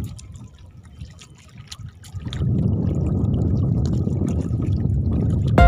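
Seawater rushing and splashing against a small outrigger boat. It drops to a low wash for the first two seconds, then swells back up and holds steady.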